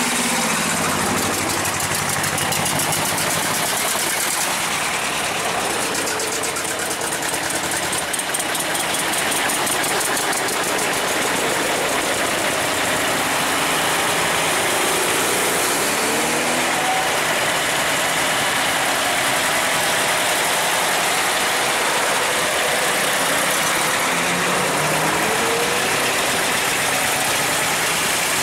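Vintage tractor engines running steadily, with the engine note rising briefly a couple of times.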